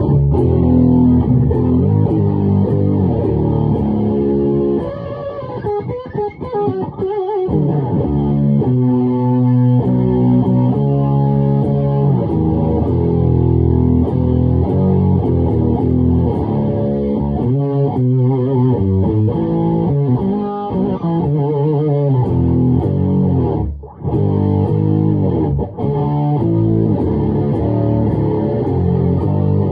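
Distorted electric guitar playing heavy riffs and chords: a Schecter E-1 through a 1994 Proco RAT distortion pedal with the LM308 chip into a Laney AOR 50 tube head and an Orange 4x12 PPC cabinet loaded with Celestion Vintage 30 speakers. A few short breaks come between riffs.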